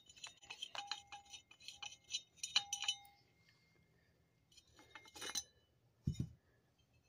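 Faint, light metallic clinks and ticks, a few leaving a brief ring, from metal bicycle parts being handled: most in the first three seconds, a few more about five seconds in, then a dull bump.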